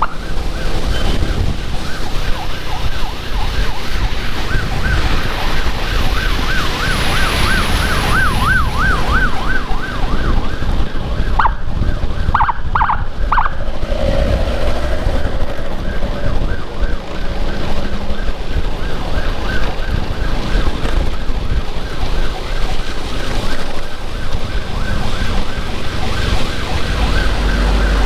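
Electronic emergency siren in a fast warbling yelp, over the low rumble of riding wind and engine. Several seconds in the warble slows into wider sweeps, and about halfway through it breaks into a few short separate blasts before the fast warble resumes.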